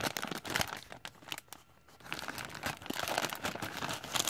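Plastic mailing envelope crinkling and rustling as it is handled and pulled open, a dense run of sharp crackles with a short lull about halfway through.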